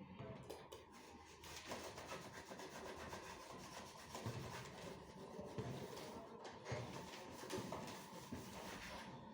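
Continuous rubbing and scraping from hands working on printer parts, faint and irregular.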